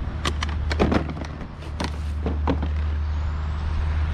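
Items being handled and moved about in a pile of kerbside junk: a quick run of knocks and clatters in the first couple of seconds, over a steady low rumble.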